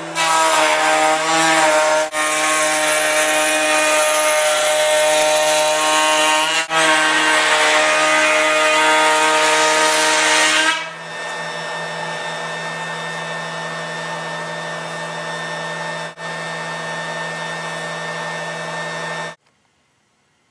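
Electric woodworking power tool running with a steady pitched hum. It is loud and harsh for about the first eleven seconds, with two brief breaks, then runs quieter until it cuts off suddenly near the end.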